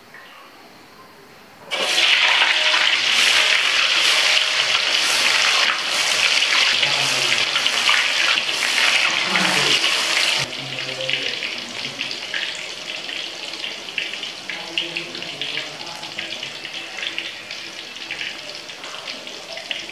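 Cubes of tofu going into hot oil in a wok: a sudden loud sizzle starts about two seconds in and goes on as dense crackling frying. About halfway through it drops abruptly to a quieter but still steady sizzle.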